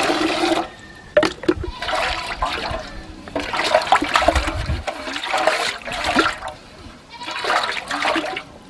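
Water pouring from a mug into a steel basin with a ringing tone for about half a second, then a hand swishing and rubbing in the water inside the basin in sloshing bursts every second or two.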